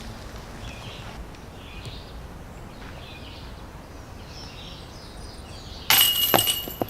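Disc striking a disc golf basket's chains about six seconds in: a sudden loud metallic jangle that rings for about half a second, followed by a smaller clink. Faint bird chirps come and go before it.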